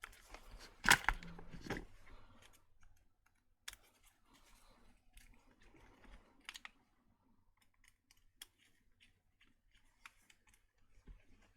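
Small clicks and taps of hands working on a cordless impact wrench's opened housing and parts, with a louder clatter of clicks about a second in, then faint scattered ticks.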